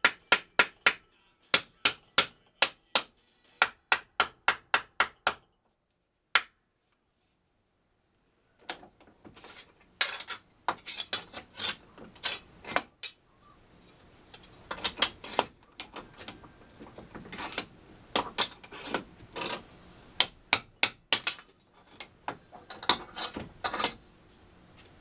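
Hammer striking metal at a bench vise: repeated sharp blows in quick runs of about three a second, with a pause of a couple of seconds about a quarter of the way in.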